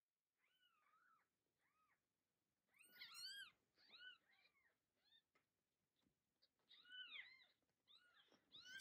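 Newborn kittens mewing: many short, high-pitched squeaky mews that rise and fall, several at once in bursts, the loudest cluster about three seconds in.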